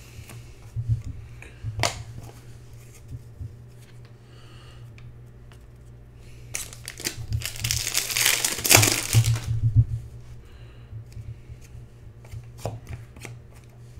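A Fleer Ultra X-Men trading card pack's foil wrapper being torn open and crinkled, a dense rustle lasting about three seconds around the middle. Sharp clicks of cards being handled come before and near the end.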